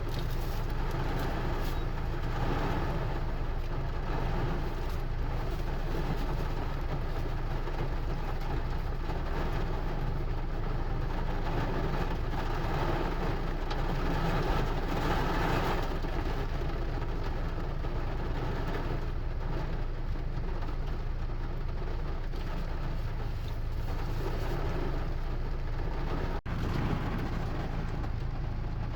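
Steady, dense rain noise with a heavy low rumble, even throughout, broken by a momentary gap near the end.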